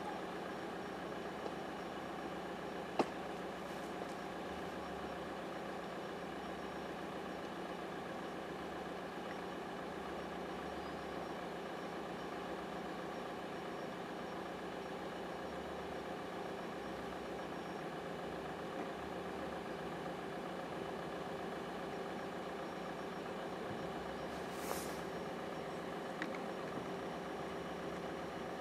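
An idling engine's steady hum, with a sharp click about three seconds in and a brief hiss near the end.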